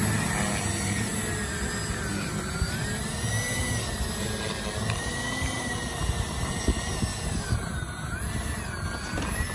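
Engines of a large radio-controlled model airliner whining as it taxis, the high whine wavering gently up and down in pitch. A rough low rumble of wind on the microphone lies under it.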